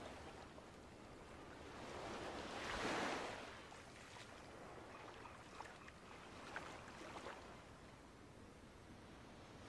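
Gentle surf washing onto a sandy beach, one wave swelling up and falling back about three seconds in. A few faint ticks follow near the middle.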